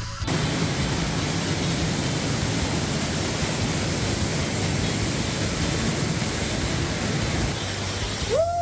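Waterfall pouring close by, a loud steady rush of water that cuts in sharply just after the start. Near the end it drops away and music comes in.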